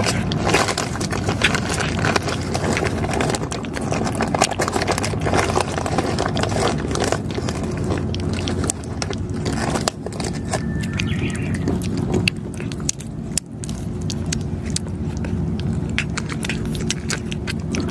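A cat crunching dry cat food, with many quick crisp clicks, over the steady low hum of an idling car engine.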